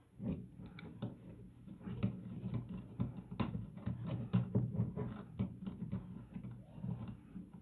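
Plastic microphone shock mount being worked onto a DSLR's hot shoe by hand: a run of small irregular clicks, taps and scrapes.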